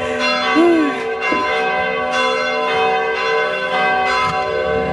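Church bells ringing, several bells at different pitches struck about once a second, their tones overlapping and ringing on.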